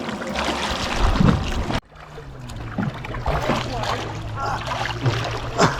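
Pedal boat's paddle wheel churning and splashing water, with occasional knocks of the plastic hull. About two seconds in the sound drops abruptly, and a steady low hum then runs under the splashing.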